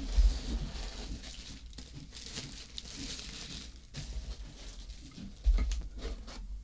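Packaging crinkling and rustling as the parts of a smart door lock are unwrapped and handled, with a soft low bump about five and a half seconds in.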